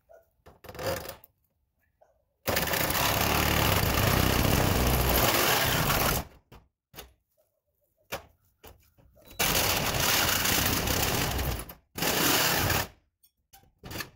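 Handheld cordless power tool cutting into corrugated metal siding, run in three bursts: one of nearly four seconds, then a shorter one, then a brief third right after it.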